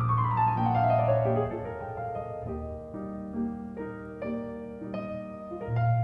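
Piano playing: a quick descending run of notes over a held bass note, then a series of struck chords.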